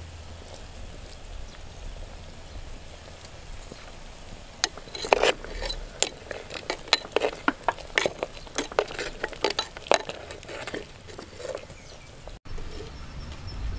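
Metal spoon stirring soup in a clay pot, knocking and scraping against the pot's sides in a quick, uneven run of sharp clicks that starts a few seconds in and dies away near the end.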